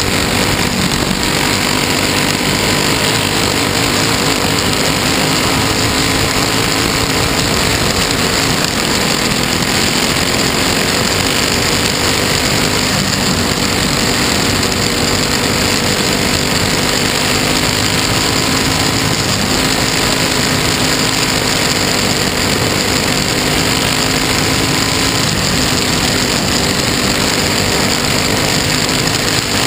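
Dirt-track race car's engine running hard and steady as the car laps, heard loud from a mount on the car itself, with its pitch wavering only slightly.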